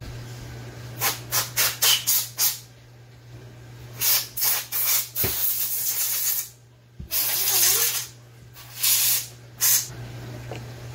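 Trigger spray bottle of cleaner squirting in quick runs of several short squirts, with a pause between runs and a couple of longer sprays near the end.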